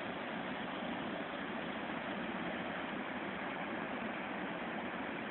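River water rushing in a steady, even stream.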